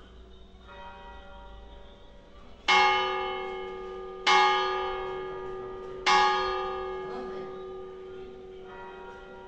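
Church tower bell tolling: three loud strokes about a second and a half to two seconds apart, each ringing on and slowly dying away, with softer bell strokes near the start and near the end.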